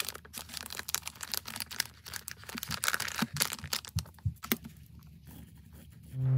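Clear plastic zip bag crinkling and crackling as a kraft-paper-wrapped package is slid into it, a dense run of crisp crackles that thins out about two thirds of the way through.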